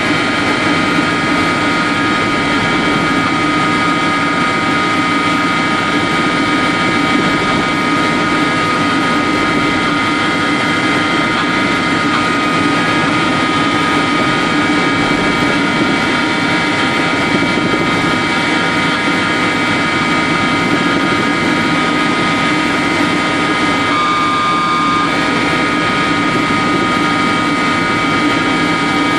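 Helicopter engine and rotor noise heard from inside the cabin in steady cruising flight, a loud even drone with a steady high whine. About four-fifths of the way through, an extra tone sounds briefly for about a second.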